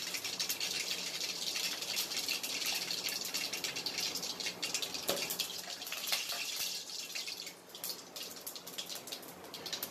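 Fennel seeds, mustard seeds and urad dal sizzling and crackling in hot oil in a steel pot, with a single knock about five seconds in. The sizzle eases somewhat over the last two seconds as the fennel browns.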